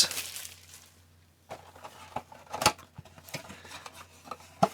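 Handling noise from opening a retail blaster box of hockey card packs: the cardboard and foil packs are moved about with scattered light clicks and scrapes, and two sharper clicks, one near the middle and one at the end.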